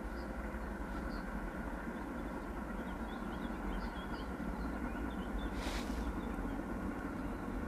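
Open-air ambience at a woodland edge: a steady low rumble with faint, scattered bird chirps above it. A brief rustling hiss comes a little before six seconds in.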